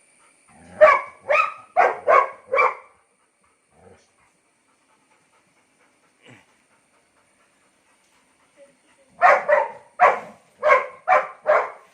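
Dogs barking in two quick runs of five or six barks with a pause between, as an adult dog and a newly introduced puppy bark at each other in an uneasy first meeting.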